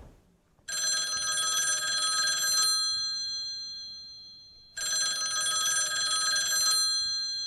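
Telephone ringing twice, each ring about two seconds long, the tone fading out after each ring. The call goes unanswered until the answering machine picks up.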